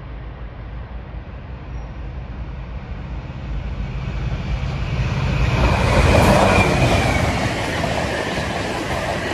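GBRf Class 66 diesel locomotive 66722 running through at speed, its two-stroke V12 engine drone building as it approaches and peaking as it passes about six seconds in, followed by the noise of its container wagons running past.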